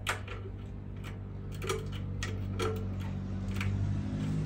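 Hand tool working a crimp-type hose clamp off a motorcycle oil-tank hose: a series of irregular sharp metallic clicks. A steady low hum runs underneath.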